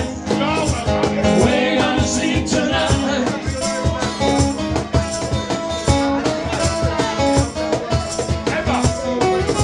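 Live acoustic band: two acoustic guitars strumming over a fast, steady beat played by hand on a cajón.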